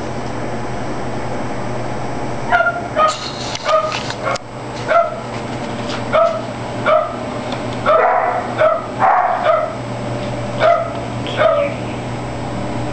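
A cocker spaniel barking: about a dozen short, sharp barks, starting a couple of seconds in, spaced roughly half a second to a second apart.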